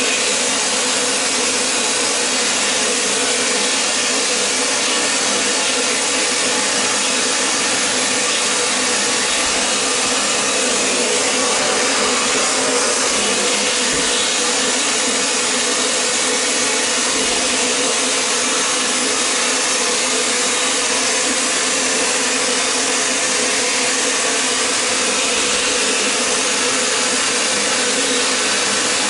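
Vapor blasting gun spraying a mix of compressed air, water and abrasive media onto a Honda CB350 cylinder head inside a blast cabinet to strip off its carbon. It makes a loud, steady hiss with a low hum underneath.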